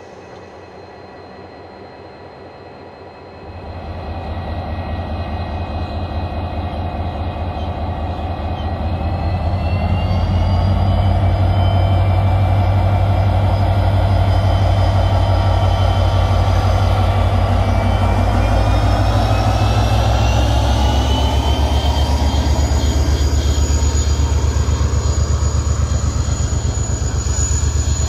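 KiwiRail DFB class diesel-electric locomotive pulling away and accelerating past at close range, its engine throbbing heavily with a whine that climbs in pitch, then the coaches rolling by. The sound is quieter and steadier for the first few seconds, then suddenly grows much louder.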